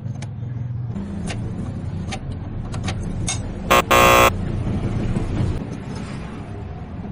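Steady low engine rumble of traffic with scattered light clicks, and just before the middle a vehicle horn sounds twice: a short toot, then a longer blast.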